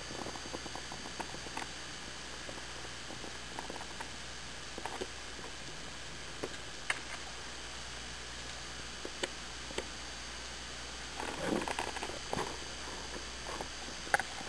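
Underwater ambience: a faint steady high whine under scattered soft clicks and ticks, with a short spell of crackling about eleven seconds in.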